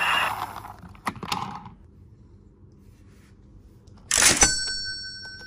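Plastic toy trains being handled: a couple of light clicks, then about four seconds in a sudden loud burst from a toy, followed by thin ringing tones that fade away.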